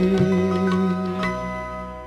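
Closing bars of the song's instrumental accompaniment: a held low note under three struck notes that ring on, the music fading out.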